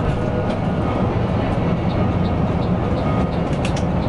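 Mercedes-Benz OC 500 RF 2542 coach running along, with steady engine and road rumble. A faint, regular ticking comes in about halfway through, and a few clicks sound near the end.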